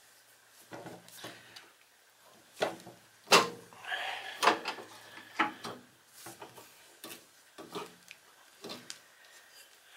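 Irregular knocks, clicks and rubbing as the rubber drive belts are worked off the pulleys of a Bolens 824 snow thrower by hand, with the loudest knock about three seconds in.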